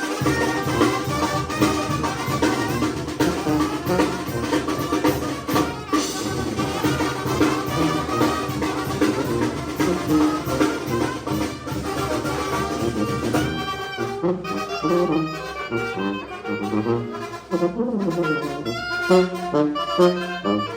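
A Mexican brass band (banda) playing, with trumpets, trombones and saxophones over a steady drum beat. About two-thirds through, the low drum beat thins out and the wind parts carry a more open melodic passage.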